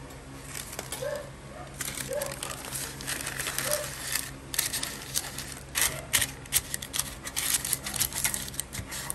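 Baking paper crinkling and rustling as it is pressed and folded into a metal loaf pan, starting about two seconds in.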